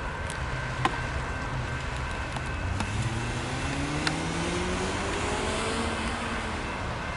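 Tail end of a double-stack intermodal container train rolling past on the rails: a steady rumble with a few sharp wheel clicks. A road vehicle's engine rises in pitch from about three to six seconds in, as it accelerates.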